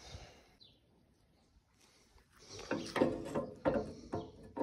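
Metal parts of a hay baler's plunger assembly scraping and knocking as they are worked into place by hand: a faint knock at the start, then from about halfway a run of short scrapes and clunks with a slight metallic ring.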